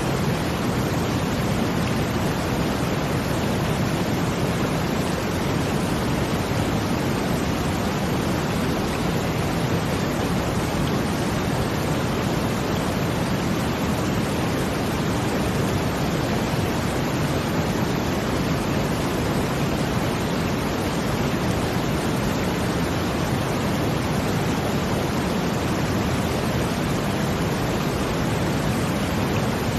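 Brown noise blended with rushing water: a deep, even hiss, steady throughout.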